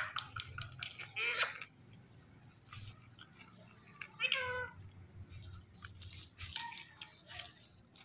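Indian ring-necked parakeet mimicking a cat's meow: two short meow-like calls, about one second and about four seconds in, with faint clicks between them.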